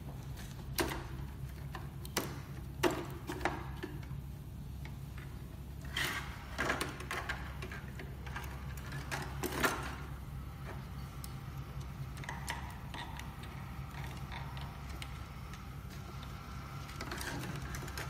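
Hands taking apart a BYINTEK BT96 projector: several sharp clicks and knocks of plastic parts and connectors in the first ten seconds as the circuit board is pulled free and the lens assembly lifted from the plastic housing, then quieter handling, over a steady low hum.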